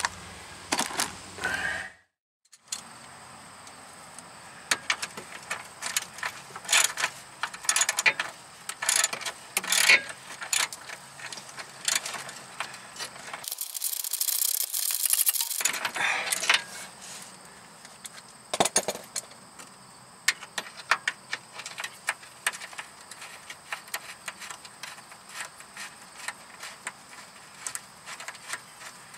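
Ratchet wrench clicking and metal tool clinks, with a short sped-up stretch in the middle, while steering rack mounting bolts are loosened.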